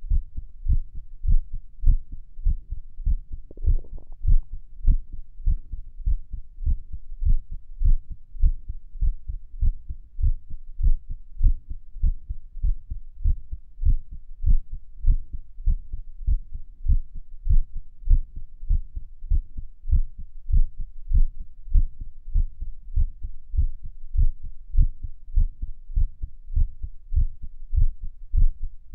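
Human heart sounds picked up at Erb's point on the chest: a steady run of low lub-dub thumps, about one and a half beats a second, from a heart the recorder calls irregular. There is a brief rustle about four seconds in.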